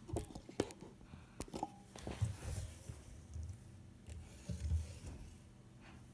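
Handling noise from plastic soda bottles being picked up and moved: a few sharp clicks and knocks in the first second and a half, then soft scraping and low bumps.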